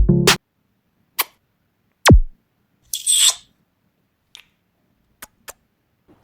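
The end of an electronic intro stinger: synth and drum-machine hits stop within the first half-second. They are followed by a sparse run of sound effects: a click, a loud swoop falling steeply in pitch, a short hissy burst, and a few faint clicks.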